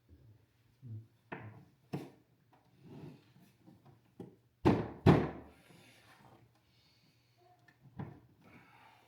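Plastic caster wheels being knocked and pushed against the base of a dehumidifier while they are fitted: scattered clacks and thuds, with two loud thumps about halfway through.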